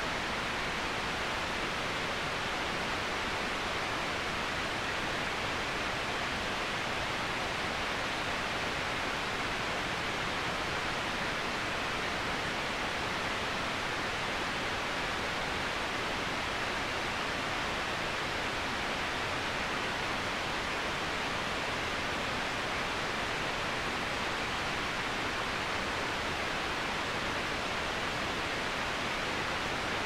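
Waterfall: water falling over rock in a steady, unchanging rush, an even hiss with no separate splashes or other sounds standing out.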